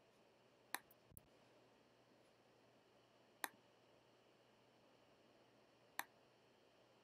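Four sharp, separate computer mouse clicks spread a few seconds apart, the second one weaker, against near silence.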